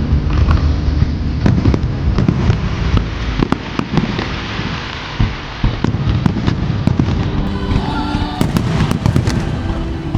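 Aerial fireworks display: a steady barrage of shell bursts and bangs, with a dense stretch of crackling about four seconds in.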